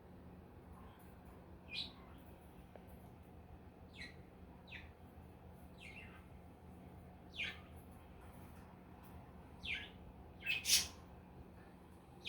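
Pet budgerigars giving short, high chirps, one every second or two, with the loudest two close together near the end.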